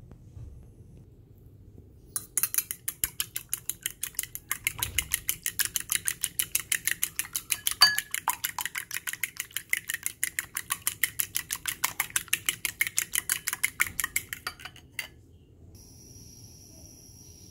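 Eggs being beaten in a glass bowl with a utensil, its head clicking against the glass in a fast, even rhythm of about five strokes a second. The beating starts about two seconds in and stops a couple of seconds before the end.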